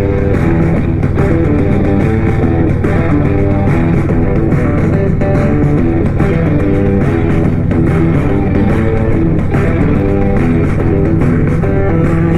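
Loud guitar-driven rock music with electric guitar and bass, played through a Harley-Davidson Road Glide's Soundz Customz Iron 65 speakers and heard from inside a full-face helmet at highway speed, over a steady low rumble.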